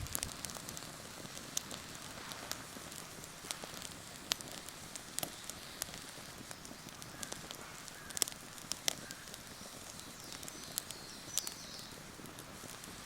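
Wood campfire burning, crackling with irregular sharp pops over a steady soft hiss.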